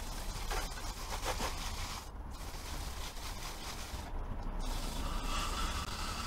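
Aerosol chain cleaner hissing as it is sprayed onto a quad's O-ring drive chain and rear sprocket, with the wheel turned by hand. The spray cuts out briefly twice and takes on a thinner, whistling hiss near the end.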